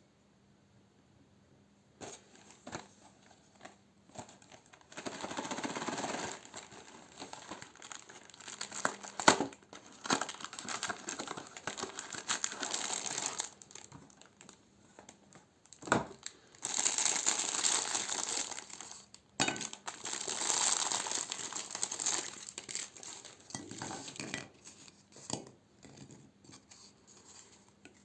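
Paper wrapper of an ice cream cone crinkling and tearing in irregular bursts a few seconds long, with a couple of sharp clicks and short quiet pauses between.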